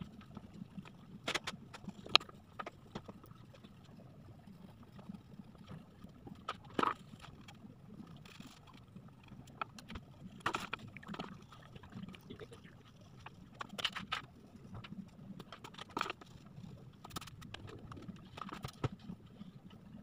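Colouring on paper by hand: irregular, scratchy rubbing strokes of a colouring stick on the sheet, with occasional light taps and knocks against the table.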